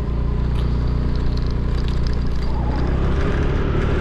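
Motor scooter engine running steadily while riding, with wind noise on the microphone.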